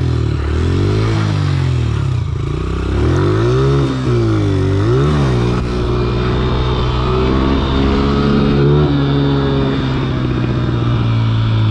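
Small dirt bike's engine revving up and down repeatedly through a circle wheelie, then running at a steadier pitch from about halfway as the bike rides on.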